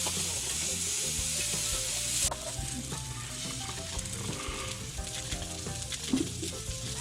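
Food frying on a hot pan, a steady sizzle that drops abruptly to a softer sizzle a little over two seconds in.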